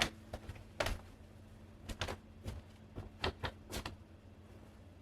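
A series of light, irregular clicks and taps, about ten over four seconds, from hard plastic ornaments and hooks being handled and hung on an artificial Christmas tree. A faint steady hum runs underneath.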